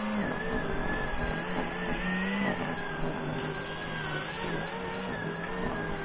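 Motorised grass trimmer running steadily while mowing, its engine pitch wavering slightly up and down.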